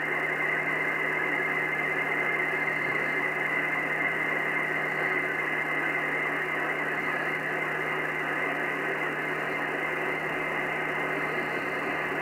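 Slow-scan television (SSTV) picture signal received in upper sideband at 27.700 MHz and played through a shortwave receiver's speaker: a steady, unbroken stream of data tones and hiss, strongest around 2 kHz and cut off above about 3 kHz.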